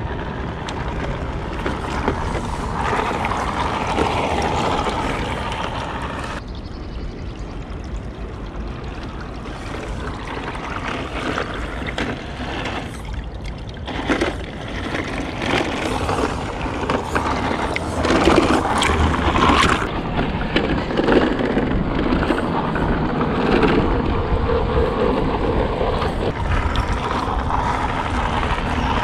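Electric motor and gear drive of a budget RC crawler truck running as it drives and climbs, with water running.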